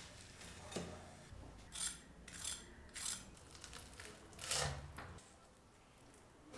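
A series of about five short, crisp scraping or crunching noises, the loudest about four and a half seconds in.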